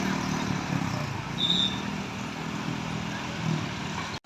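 Diesel bus engine running as a bus passes in road traffic, its low drone swelling and fading twice, with a brief high chirp about a second and a half in.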